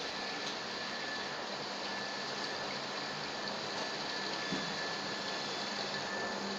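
Dry-cleaning machine running a cycle: a steady rushing, splashing hiss of solvent spraying and sloshing inside the drum, over a low steady hum and a faint steady whine, with one small click about four and a half seconds in.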